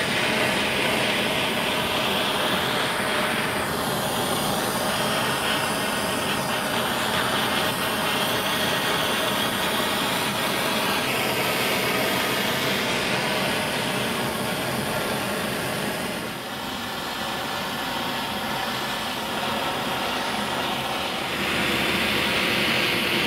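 Handheld propane torch burning with a steady hiss as its flame scorches birch wood. The hiss dips briefly about two-thirds of the way through.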